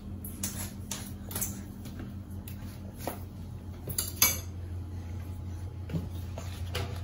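Kitchen dishes and cutlery clinking and knocking in a string of short, sharp clinks, the loudest about four seconds in, over a steady low hum.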